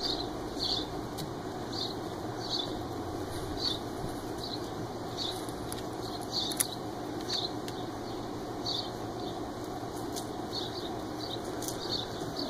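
Puppies scrambling and pawing at a large plastic water jug, with scattered light knocks and scratches, over a steady low background noise. A faint high chirp repeats about every two-thirds of a second.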